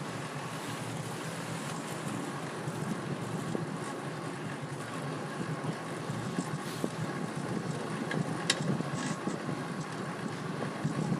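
Wind rushing over the microphone while riding a fixed-gear bicycle, with steady road noise and a sharp click about eight and a half seconds in.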